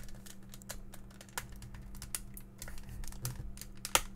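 Snap-fit plastic case of a Denon RC1166 remote control being pried apart with fingernails: a scatter of small plastic clicks and ticks as the clips along the seam give, with one sharper click near the end.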